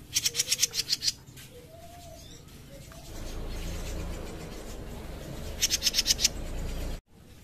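A caged jenggot mini songbird singing a quick burst of sharp, high, evenly repeated notes, about eight in a second, at the start and again near the end. Between the bursts there is a steady low rough noise.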